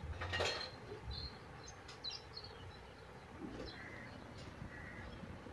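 A few faint, short bird chirps over quiet background noise, with a brief rustle about half a second in.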